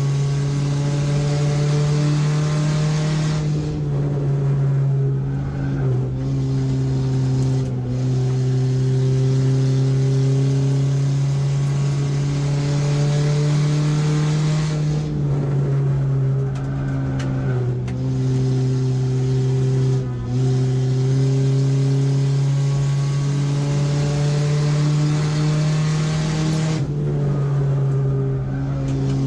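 Race car engine running hard at a steady high pitch, heard from inside the stripped, caged cockpit, with the driver briefly easing off the throttle several times.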